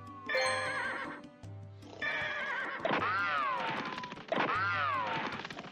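Music with a repeating bass pulse, over which pitched animal-like calls sound: first a warbling call, then two long calls that each rise and fall in pitch.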